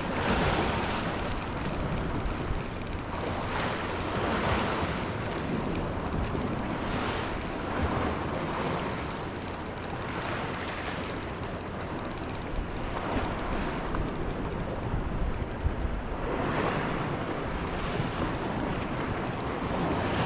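Small sea waves washing and lapping against the shore in swells every two or three seconds, with wind buffeting the microphone.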